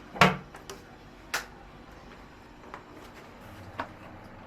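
A sharp click of a power switch or circuit breaker being flipped back on, then a second click about a second later and a few faint ticks, with a low steady hum coming in near the end.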